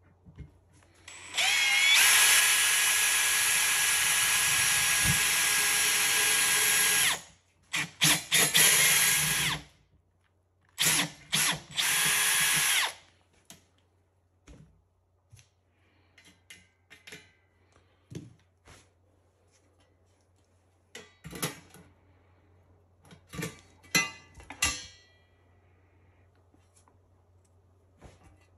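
Cordless drill drilling into the metal oven door frame: it spins up with a rising whine and runs for about six seconds, then runs in two shorter bursts. Light clicks and knocks of parts being handled follow.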